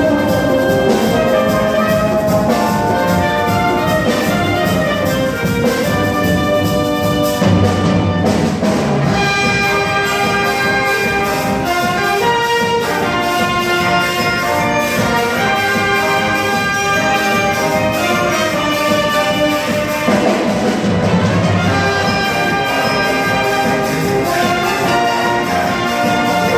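School wind band playing, with trumpets and trombones carrying the tune over percussion that keeps a steady beat. There are heavier low accents twice, about a third of the way in and again near the three-quarter mark.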